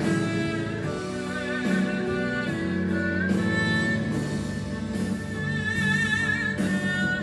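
Haegeum, the Korean two-string fiddle, bowed in a slow melody of long held notes that slide between pitches, with a wide vibrato on a held note near the end.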